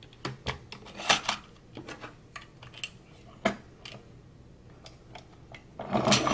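Light plastic clicks and clatter as the Dahle 133 hand-crank sharpener's pencil carriage is pulled out and a colored pencil is clamped into it. Near the end the crank starts turning and the blades begin grinding steadily on the pencil.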